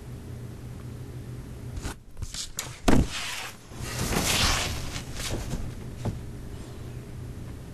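A steady low room hum, broken by a few small clicks, one sharp knock about three seconds in, and then a couple of seconds of rustling, like someone shifting and handling things at a table.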